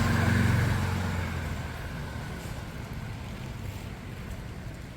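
A motor vehicle's engine, loud and close at first, fading away over the first second or two, then a steady low rumble of street traffic.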